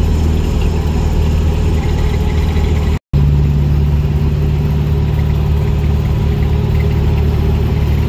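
Car engine running steadily at cruising speed, a deep continuous drone with road noise. It cuts out for a moment about three seconds in, and the engine note is slightly different afterwards.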